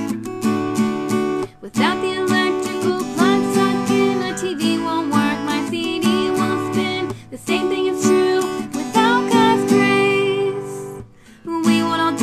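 An acoustic guitar is strummed in a steady rhythm while a woman sings, with short breaks in the music about one and a half, seven and eleven seconds in.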